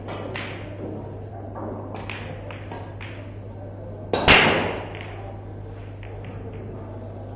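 Pool break shot at 10-ball: about four seconds in, the cue ball smashes into the racked balls with one loud crack, followed by a spread of smaller clicks as the balls collide and hit the cushions. Fainter scattered clicks of balls come before it, over a steady low hum.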